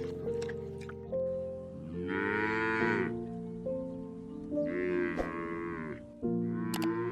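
Cattle mooing: two drawn-out calls, with a third beginning near the end, over steady background music.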